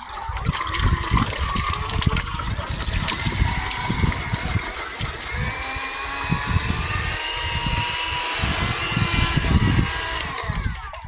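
Battery-powered vacuum cleaner running while sucking up water: a motor whine that climbs slightly in pitch over choppy sloshing of water being drawn in, then winds down just before the end as the motor stops.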